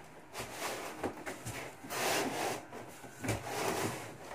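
Cardboard scraping and rubbing against cardboard as a long guitar box in white packing is slid up out of its shipping carton, in uneven rasping strokes, loudest about halfway through.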